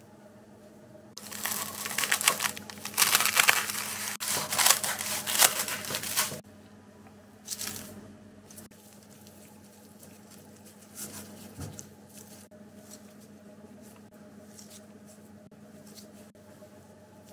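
Crinkling and rustling of something thin and dry being handled, loud for about five seconds, with one more short rustle after it, then a few soft taps.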